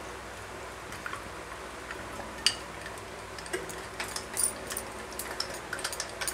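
Water pouring from a plastic bottle into a glass of ice, then a metal spoon stirring the drink, clinking against the glass and ice cubes in many quick light clicks from about the middle on.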